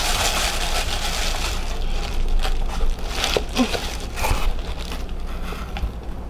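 Tissue paper rustling and crinkling as it is pulled back inside a cardboard box. It is densest for the first couple of seconds, then continues in scattered crackles.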